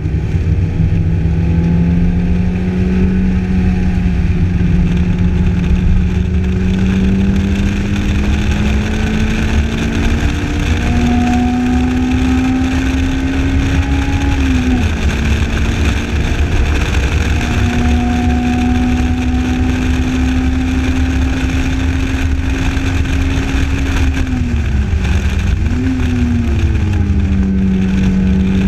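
Lotus Elise's four-cylinder engine running hard at track speed, its note climbing slowly for about ten seconds, then held steady with two brief sharp dips in pitch. A heavy low wind rumble from the open cabin runs under it.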